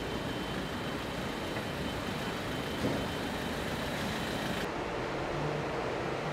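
Land Rover Defender's engine running as the vehicle rolls slowly forward, heard against a steady, dense factory noise. About four and a half seconds in the high hiss drops away, leaving a lower rumble.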